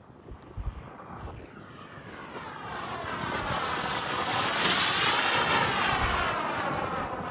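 Model jet airplane passing close by: its jet noise builds, peaks a little past halfway through, then fades as it moves away.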